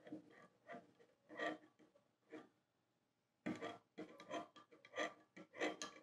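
A metal spoon stirring in a glass measuring cup of hot water, scraping and lightly clinking against the glass, as gelatin is dissolved; the strokes pause briefly a little before the middle, then carry on.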